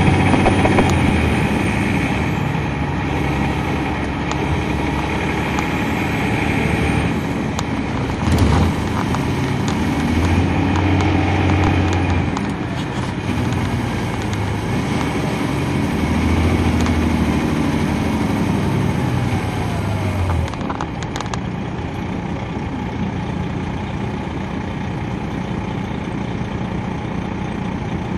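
Detroit Diesel Series 60 diesel engine of a 2003 MCI D4500 coach, heard from inside the bus while under way. The engine note rises and falls twice, with a brief thump about eight seconds in, then settles to a lower, steadier drone about twenty seconds in.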